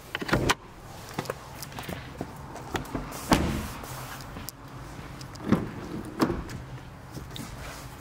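Clunks and thumps of a Land Rover Discovery Sport's doors being opened and shut, with the camera knocking about: a loud thump just after the start, another about three seconds in, and two more around five and a half to six seconds, with small clicks between.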